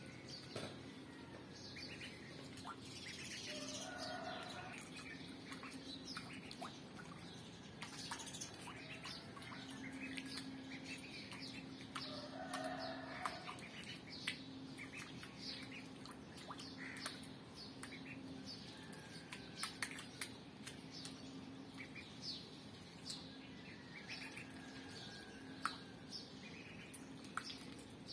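Duckling peeping: many short, high, falling peeps scattered throughout, over a faint steady low hum.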